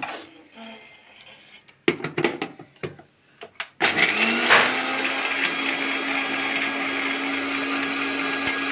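Electric mixer grinder grinding cashews in its steel jar. First come a few clicks and knocks as the jar is set on the base and the lid is pressed on. About four seconds in, the motor starts with a rising whine and then runs steadily.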